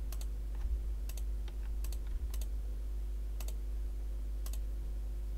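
Computer mouse buttons and keyboard modifier keys clicking as faces are selected in 3D software: a handful of sharp clicks, some in quick pairs, about one a second, over a steady low hum.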